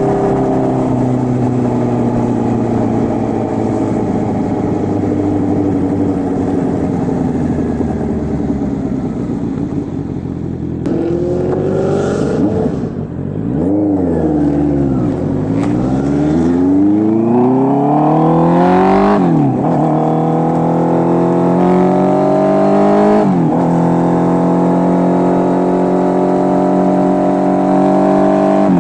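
Honda CB650R inline-four engine through an SC Project full exhaust system. The engine note sinks slowly at first, then dips and climbs in revving pulls. It drops sharply twice, about two-thirds and four-fifths of the way in, as at gear changes, and then holds a steady note.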